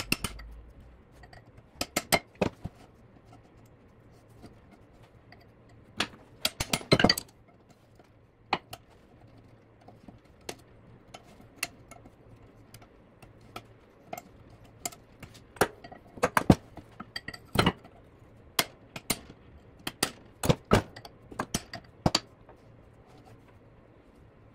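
Hammer and chisel striking the old ball bearing on a Chrysler 8 3/4 drive axle shaft to break it apart: irregular sharp metallic clinks and taps, some in quick clusters of several strikes.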